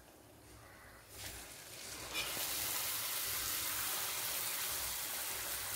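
Wheat-flour dough pieces going into hot oil and deep-frying. After a near-silent first second, the sizzle swells up and settles into a steady hiss.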